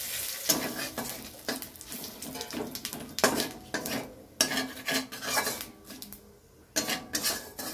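Metal spatula scraping and clinking against a metal wok in quick, irregular strokes, stirring cumin seeds and bay leaves frying in oil, with the oil sizzling underneath: the spices being tempered.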